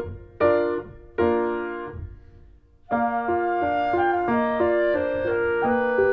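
Background piano music. Two chords are struck and left to fade, there is a short pause, then a steady run of chords picks up about three seconds in.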